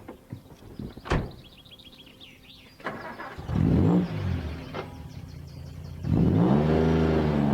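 A few sharp clicks and high chirps, then an engine starts about three seconds in, its pitch rising and falling as it revs. About six seconds in it gets louder and settles into a steady run.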